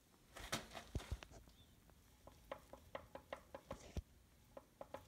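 Faint light clicks and taps, a few per second, with louder single knocks about a second in and about four seconds in.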